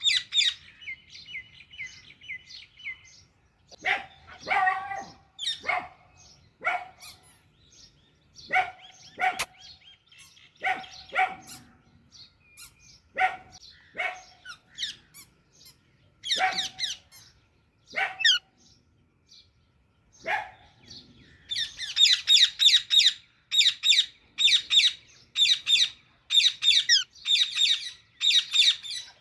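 Baby Alexandrine parakeet calling: a string of short, harsh squawks a second or so apart, then, about two-thirds of the way through, a louder, fast run of high chirps at about two a second.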